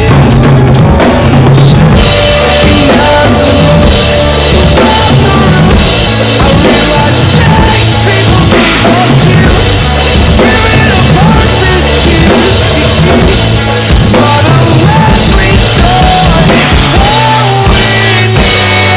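Acoustic drum kit played continuously with bass drum, snare and Meinl cymbals, over a recorded rock song whose melody lines run under the drums.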